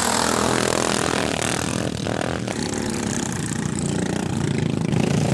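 Racing lawnmowers' small petrol engines running at speed around the track, a steady engine drone.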